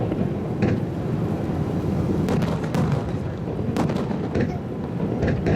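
Aerial fireworks bursting overhead: a continuous low rumble of explosions with several sharp cracks and pops scattered through it.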